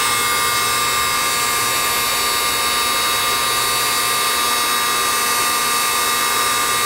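Hot-air heat gun running steadily: a constant rushing-air hiss with a fixed whine from its fan. It is blowing hot air onto the solder side of a circuit board to melt the solder holding a through-hole chip.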